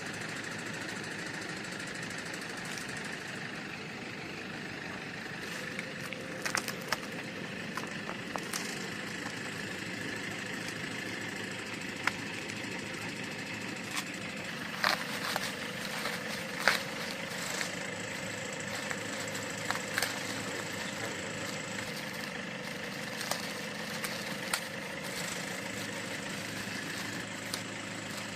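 An engine idling steadily, with scattered sharp clicks and taps over it.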